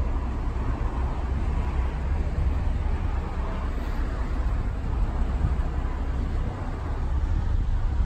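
Steady low rumble of passing road traffic, with no single event standing out.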